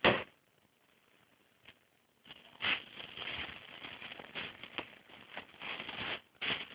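Cats pouncing at a door: a sharp thump, then about four seconds of irregular scuffling from their paws, with one more short scuff near the end.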